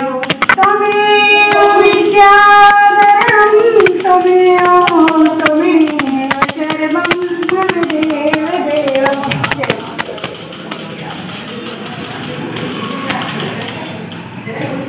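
Hindu devotional chant music: a sung melody with long held, wavering notes over quick percussion. The voice stops about nine seconds in, and the percussion and backing music carry on more faintly.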